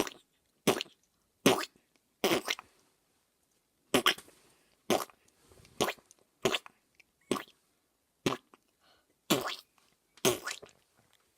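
A person making a string of about a dozen short mouth-made sound-effect noises, each a brief burst with gaps of about a second between them.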